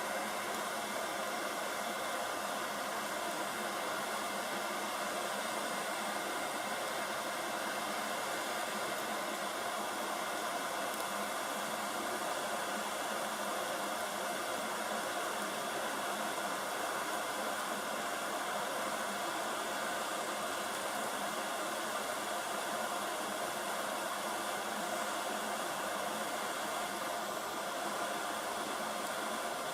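Heat gun blowing hot air with a steady, even hiss, used to free a phone's charge port from the circuit board.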